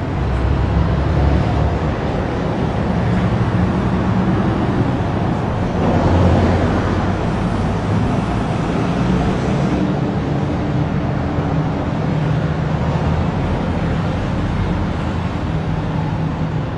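A large engine running steadily, a constant low hum under a noisy wash that stays level throughout.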